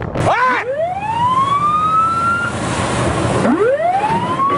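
A siren sounding: a brief quick warble, then two slow rising wails, each climbing for about two seconds and then stopping, the second beginning about three and a half seconds in. Beneath it is a steady rushing noise.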